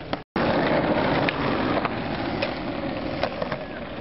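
Skateboard wheels rolling over street asphalt, a steady gritty rolling noise with a few sharp clicks scattered through it. The sound drops out for a moment near the start at a cut, then comes back loud and eases off slightly.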